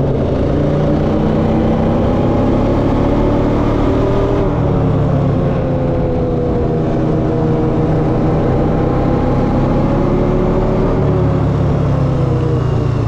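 ATV engine running as the quad rides along a paved road, its pitch rising and falling as the throttle is eased off and opened again.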